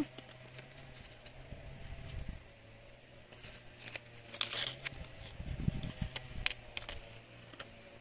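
Paper rustling and crinkling as a paper cut-out sticker is handled and its backing peeled off, with scattered light clicks and a brief louder rustle a little after halfway.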